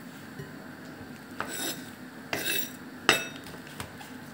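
Kitchen knife slicing through a cabbage head onto a wooden cutting board: three cuts in quick succession, the last and loudest a sharp knock of the blade on the board.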